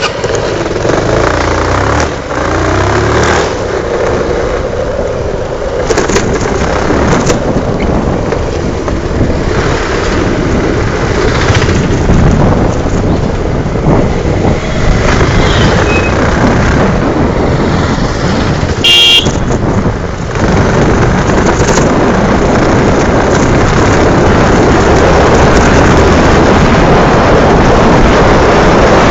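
Single-cylinder TVS Apache motorcycle running on the move, mixed with heavy wind rush on the microphone; the engine note rises and falls in the first few seconds, and the noise grows louder and steadier near the end as speed builds. A brief high-pitched beep about two-thirds of the way through.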